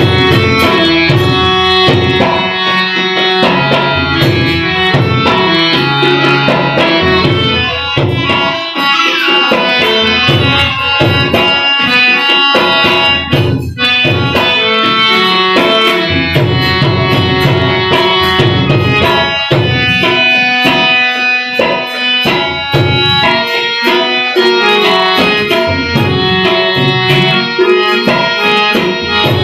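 Instrumental interlude of a Gujarati folk song: harmonium playing a continuous melody over a steady tabla rhythm.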